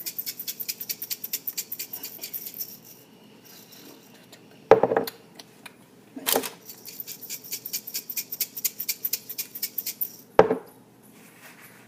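Rapid run of light clicks, about eight a second, that stops about three seconds in and starts again after the middle, broken by three loud knocks of kitchenware.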